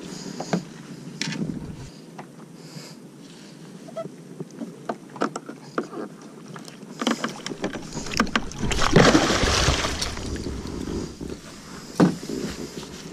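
Water splashing and knocks against a kayak hull as a blacktip shark is handled alongside and let go. Scattered clicks and knocks, then a long burst of splashing about two-thirds of the way in as the shark thrashes in the water, and one sharp knock near the end.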